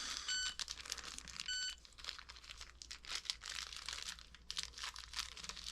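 A small plastic bag crinkling and rustling as a tiny hinge is taken out of it. Two short high beeps sound about a second apart near the start.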